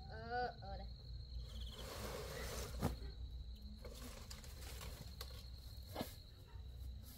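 Insects, crickets or similar, trilling steadily on one high note. A short rising call comes just after the start, a rustle follows about two seconds in, and sharp knocks come about three seconds and six seconds in, the first knock the loudest.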